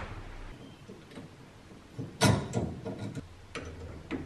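Knocks and clicks of metal parts and hardware being handled during workshop assembly. The loudest is a short clatter about two seconds in, followed by a few softer ticks and knocks.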